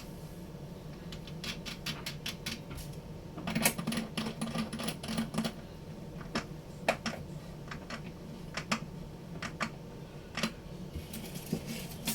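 Irregular light clicks and taps of small parts and tools being handled, busiest a few seconds in, over a faint steady low hum.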